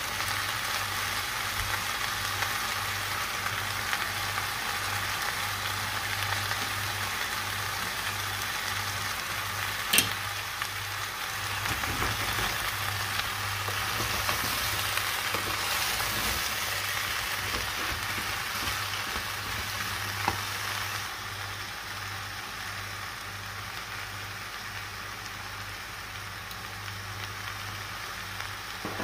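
Chopped zucchini, potatoes, carrots and onions sizzling in oil in a stainless steel pot while being stirred, with a sharp knock about ten seconds in and a smaller one around twenty seconds. The sizzle softens for the last several seconds.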